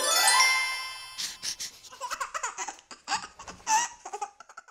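Animated logo intro sound effect: a rising swoop with ringing chimes, followed about a second later by short bursts of children's laughter and giggling.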